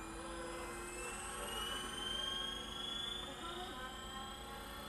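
Electric motor and 8-inch propeller of a small RC flying wing whining high overhead, a faint drone whose pitch rises slowly and swells a little after halfway.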